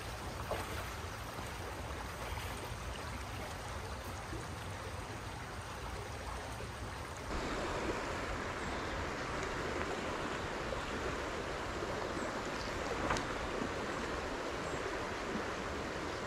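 Shallow, rocky creek water running, a steady rush of flowing water. About seven seconds in it becomes slightly louder.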